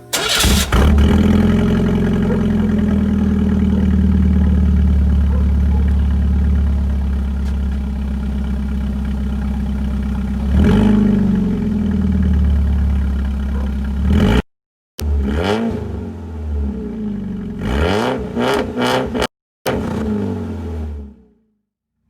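1998 Chevy S10 pickup engine running through a straight-piped exhaust with no muffler. It catches just after the start and idles loud and steady, then revs once about halfway through. In the second half come several quick rev blips, each rising and falling in pitch, broken by abrupt cuts to silence.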